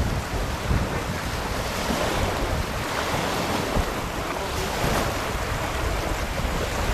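Small waves washing onto a sandy beach, with wind buffeting the microphone as a low rumble.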